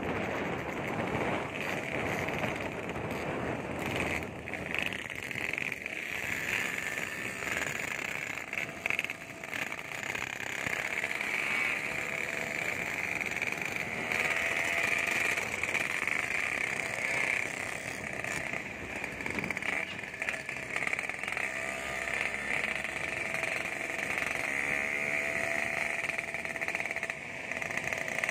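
Motorcycle on the move, its engine running with the revs rising a couple of times, under a steady high hiss of wind and road noise.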